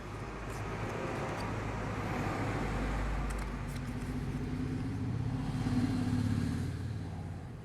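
A car engine running, a steady low hum that grows louder, peaks near the end and then fades.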